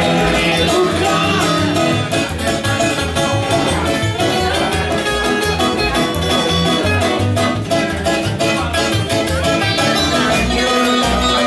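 Live acoustic band playing an instrumental break in a fast bluegrass/country style: banjo and acoustic guitar picking over a plucked upright double bass walking steadily in the low end.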